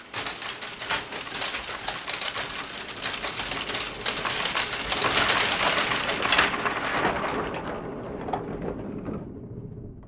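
Linotype typesetting machine running: a dense, continuous clatter of rapid clicks and rattles that fades away near the end.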